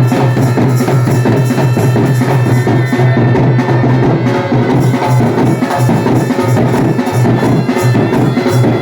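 Been (pungi) band music: reed pipes playing a folk tune over a steady drone, with quick drum beats driving the rhythm.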